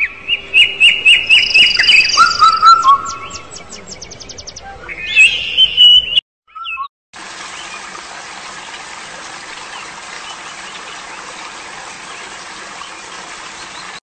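Birds singing: quick runs of repeated falling whistled notes and a lower trill, for about six seconds. After a short break, a steady even hiss of water takes over.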